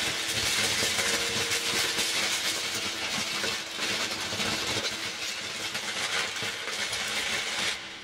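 Loud steady rushing hiss over a low rumble, film soundtrack sound effect, cutting off suddenly near the end.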